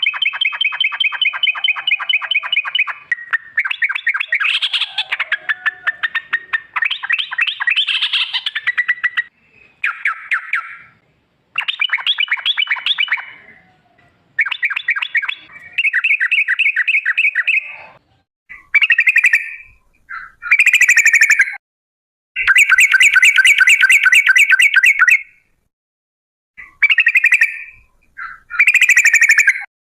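Yellow-vented bulbul (trucuk) calling in long, rapid rattling trills, the 'ropel' song, each phrase a fast run of even notes at a near-steady pitch. The phrases last one to three seconds with short breaks between them, and they get shorter and more spaced out in the second half.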